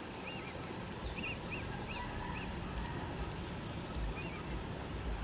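Faint steady background noise with a bird giving a string of short, repeated chirps, most of them in the first half, and a few thinner, higher whistles.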